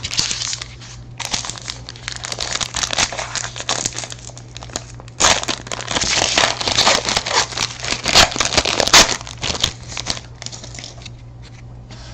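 A trading-card pack wrapper being torn open and crinkled in the hands, in several spells of rustling with short pauses between.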